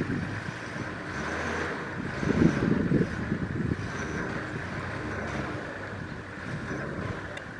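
Wind buffeting the microphone over a steady low rumble, with a stronger gust about two to three seconds in.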